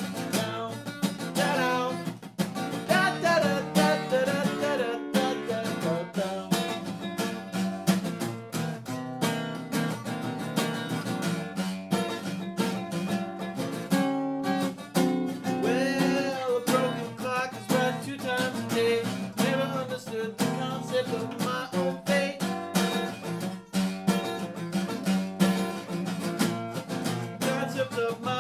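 Acoustic guitar music, strummed and picked, running on without a break.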